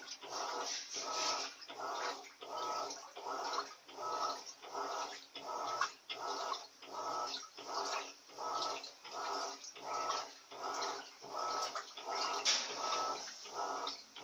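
Electrolux Silent Control 16 kg (LAC 16) washing machine agitating a duvet load in water, with its silent cycle switched off: a regular swish-and-slosh, about three strokes every two seconds.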